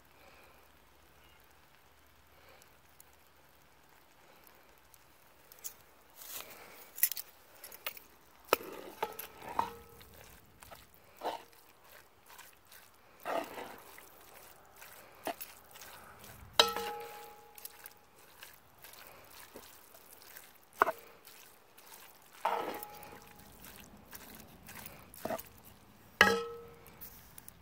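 Wooden spoon stirring ground-beef chili in a cast iron Dutch oven: irregular scrapes and knocks against the pot from about five seconds in, several with a short metallic ring, over a faint hiss.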